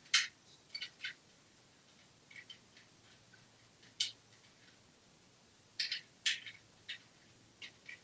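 Irregular sharp clicks and taps, about a dozen, some in quick pairs, from an African grey parrot working a small plastic toy tool with its beak.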